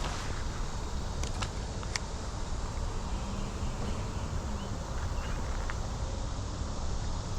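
Steady outdoor background noise with a low rumble, and a few sharp light clicks a little over a second and about two seconds in.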